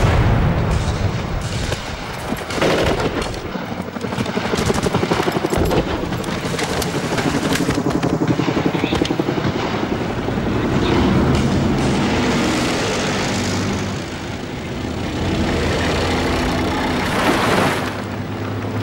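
Battle-scene sound effects: an explosion just as the sound starts, then a dense, continuous din of rapid gunfire with a fast, regular thudding.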